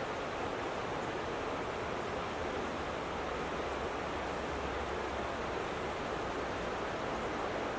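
Steady rush of moving water, an even hiss that never changes in level.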